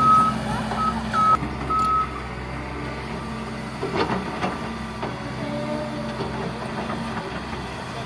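Caterpillar excavator's diesel engine running steadily. A few short high electronic beeps of uneven length sound in the first second and a half, and a sharp knock comes about four seconds in.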